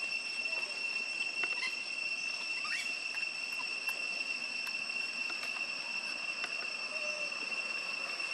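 Insects droning in one steady, continuous high-pitched tone, with a few faint clicks over it.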